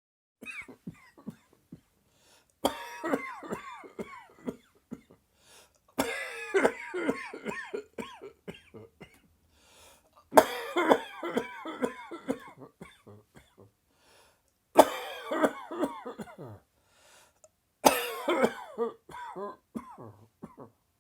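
A person in a sudden dry, tickly coughing fit: about six bouts of rapid, hacking coughs, each a couple of seconds long, separated by short pauses. The bouts about halfway through are the loudest.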